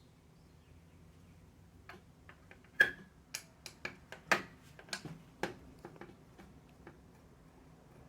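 Irregular sharp clicks and taps of small metal parts handled by hand: CPU cooler standoffs being screwed into a motherboard back plate without a tool. About a dozen clicks start about two seconds in and thin out near the end.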